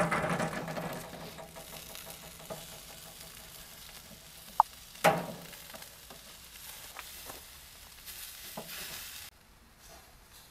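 Marinated lamb kebabs sizzling on flat metal skewers over a charcoal grill, loudest at the start and settling to a steady sizzle. Two sharp clicks come about half a second apart near the middle, and the sound drops off abruptly near the end.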